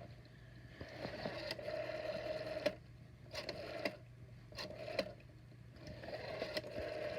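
A rotary telephone dial being wound and left to spin back several times: a steady whirr as it returns, with sharp clicks as it is turned and as it stops.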